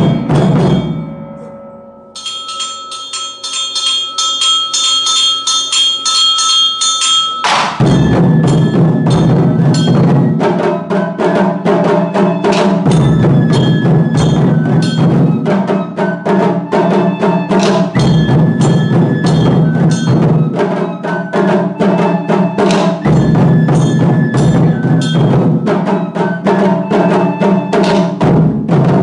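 Japanese taiko ensemble playing barrel drums (nagado-daiko) with sticks. A stroke dies away at the start, then comes a lighter passage of quick strikes with a ringing tone, and about seven and a half seconds in the full group comes in with heavy, rapid rhythmic drumming.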